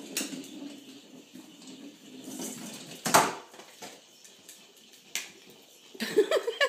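Airedale terrier puppy playing with a toy ball on a hardwood floor: light clatter and scuffling, with one loud knock about three seconds in and a few smaller knocks. A high voice starts up near the end.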